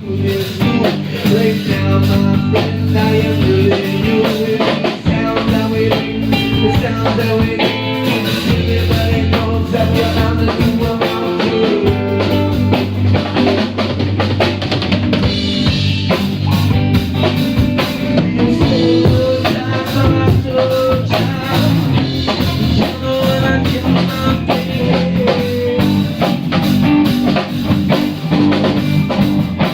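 A band playing an instrumental jam led by a drum kit, with kick drum, snare and rimshots over sustained bass and pitched instrument notes.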